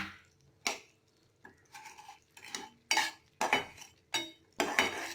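A spoon clinking and scraping against a pan in short, uneven strokes about every half second, stirring brown sugar into melted butter to make caramel.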